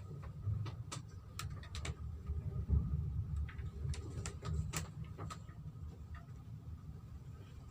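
Low steady rumble of a small ship under way in heavy seas, with scattered light clicks and ticks.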